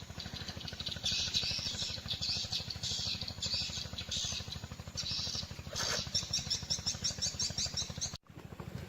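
High-pitched chirping calls, repeated in short bursts, that quicken into a fast, even trill about six seconds in, over a steady low hum; the sound cuts out briefly near the end.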